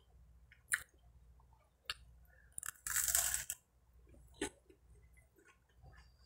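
Eating buttered bread close to the microphone: small mouth clicks, a crunchy bite about three seconds in, then quiet chewing.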